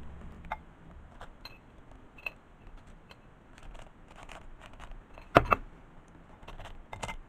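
Toasted baguette cubes dropped by hand into a ceramic baking dish of meatballs and tomatoes: scattered light clicks and taps, with one sharper knock a little past halfway.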